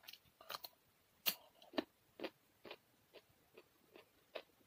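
Raw carrot stick bitten off with crisp crunches, the loudest about a second in, then chewed steadily at about two chews a second, close to a clip-on microphone.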